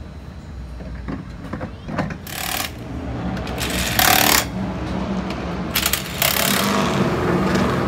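Impact wrench run in several short bursts, driving the lug nuts onto a monster truck's transport wheel.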